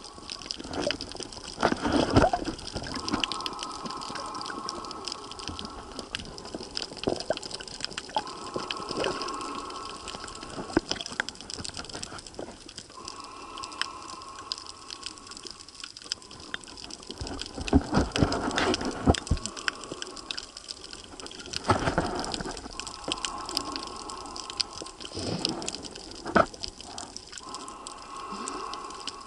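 Water sloshing and bubbling around the camera, heard underwater while snorkeling, with scattered clicks and gushes. A short humming tone comes back about every five seconds.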